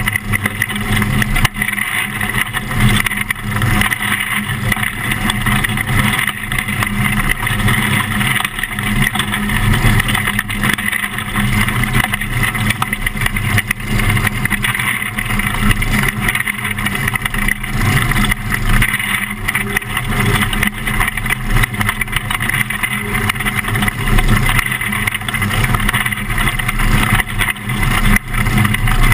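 Onboard engine noise of a winged dirt-track micro sprint car running steadily in a pack of cars, heard from inside the cockpit.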